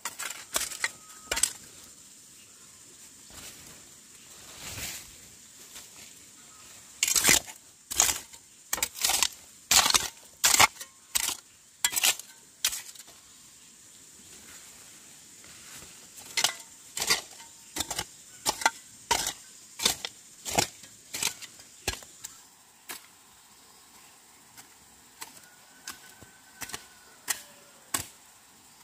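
Irregular series of sharp strikes, roughly one a second, with quicker runs of several in a row and fewer, fainter ones near the end.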